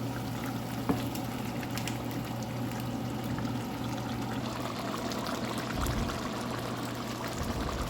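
Dried squid sambal sizzling and bubbling in oil in a pan, a steady crackling hiss over a low steady hum.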